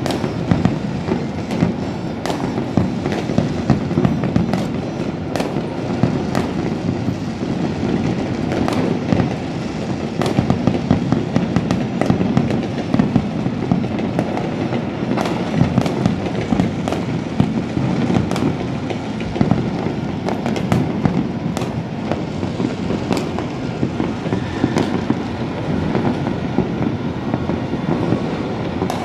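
Many fireworks going off at once, their bangs and crackles overlapping into a constant rumble, with sharp reports several times a second.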